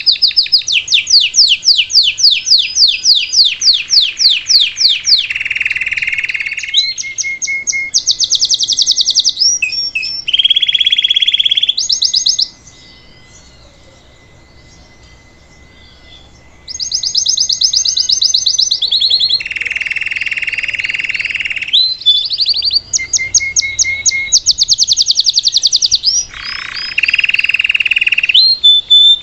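Domestic canary (Belgian canary) singing a long 'salsa' song: phrases of fast repeated notes and rolling trills, each phrase switching to a new pitch. It breaks off for about four seconds near the middle, then resumes.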